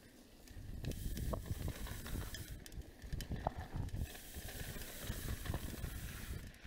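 Mountain bike riding along a dirt trail: tyres rolling over packed dirt and fallen leaves, with irregular knocks and rattles from the bike over bumps, over a steady hiss.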